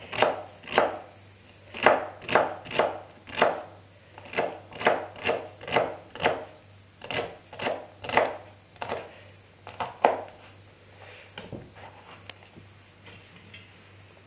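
Kitchen knife chopping celery by hand on a plastic cutting board, strikes about two a second and uneven in strength; the chopping stops about ten seconds in.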